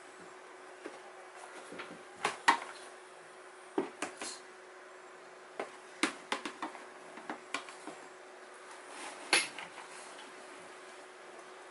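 Scattered light clicks and knocks from bark-chip substrate and a metal snake hook in a plastic tub as a cobra moves. The sharpest knocks come about two and a half seconds in and again near the end, over a faint steady hum.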